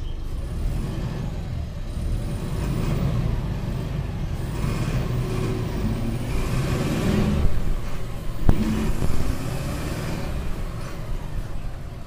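MWM 4.12 TCE four-cylinder turbodiesel of a Volkswagen 15-190 EOD city bus running under way, getting louder over the first seven seconds or so as it pulls, with a sharp click about eight and a half seconds in, then easing off.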